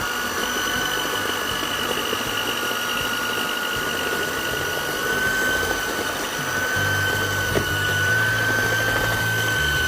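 Electric hand mixer running at a steady speed with a high, even whine, beating room-temperature unsalted butter in a mixing bowl.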